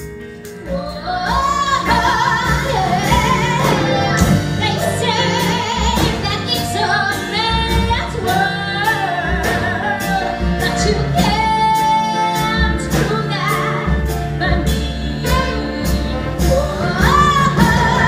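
A woman's lead vocal singing a 1960s-style pop number with a live band behind her, with drums keeping a steady beat. The music starts about a second in.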